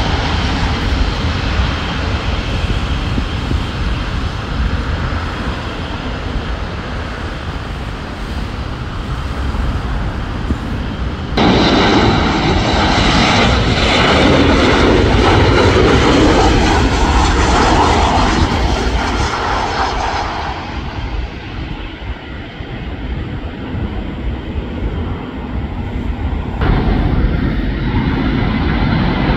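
Turbofan engines of twin-jet airliners on final approach and touchdown, a steady jet noise with deep rumble, in clips edited together. About 11 seconds in the sound cuts abruptly to a louder, closer pass, and it cuts again near the end.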